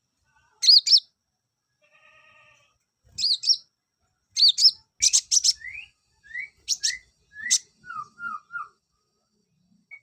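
Male olive-backed sunbird (konin) singing: sharp high chirps in pairs and quick bursts, then a run of short rising whistled notes and, near the end, three lower down-slurred notes.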